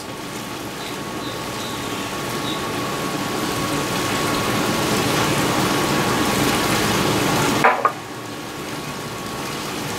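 Steady sizzling hiss from the hot flat-top griddle, growing slowly louder, then dropping abruptly to a quieter hiss about three-quarters of the way through.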